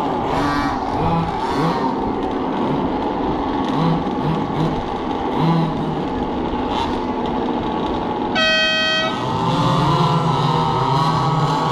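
Several radio-controlled cars racing on a dirt oval, their motors running with pitches rising and falling as they speed up and slow down. About eight seconds in, a loud horn-like tone sounds for under a second.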